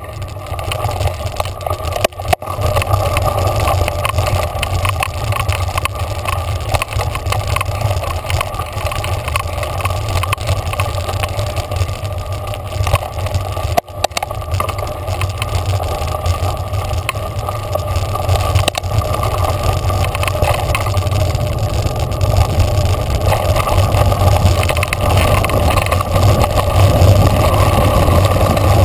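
Mountain bike rolling along a dirt trail: steady tyre noise and rattle with wind rushing over a bike-mounted camera, getting a little louder near the end.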